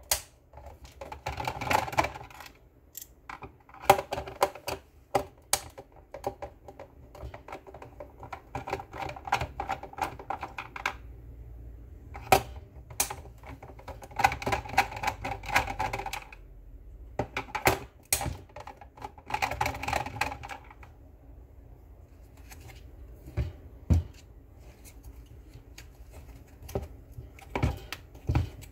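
Clicking and rattling of the speaker's hard plastic housing and internal parts under the hands during disassembly. The clatter comes in bursts of a second or two, with sharp single clicks between them.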